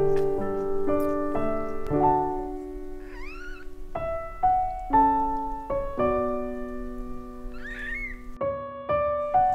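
Piano music with a steady run of notes, over which a newborn kitten gives two short high mews, about three seconds in and again near the end.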